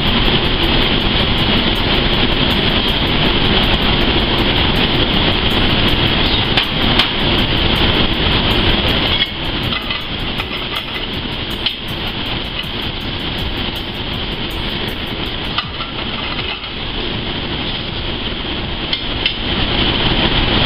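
Ground pork filling with Napa cabbage sizzling in a hot sauté pan on a gas range, over the steady rush of a commercial kitchen's burners and exhaust hood. A spoon clinks against the pan now and then, and the sound drops slightly about nine seconds in.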